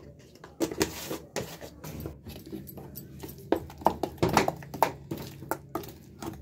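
Metal spoon stirring thick ground chana dal paste in a steel mixer-grinder jar: irregular scrapes and clicks of the spoon against the steel.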